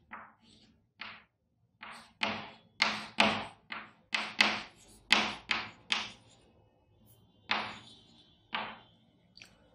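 Chalk writing on a blackboard: a string of short, quick strokes and taps, about fifteen, with a pause of about a second and a half past the middle.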